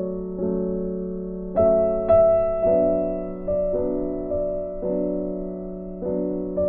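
Background music: slow piano chords, each struck and left to fade before the next.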